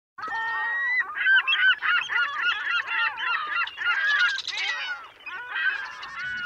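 A flock of geese honking, many calls overlapping, with a brief lull about five seconds in.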